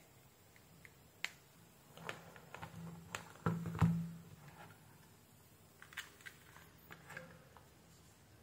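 Small clicks and handling knocks of USB cable plugs being pushed into a phone's charging port and into a USB power meter, with the loudest rustle and knock of handling a little over three seconds in.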